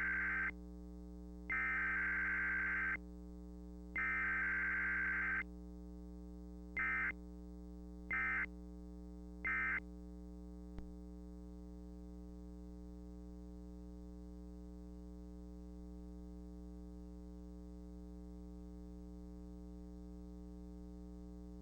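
Emergency Alert System SAME data bursts: the end of one header burst and two more full ones, each about a second and a half of harsh two-tone digital warble, then three short end-of-message bursts about a second and a half apart. After that only a steady low electrical hum remains.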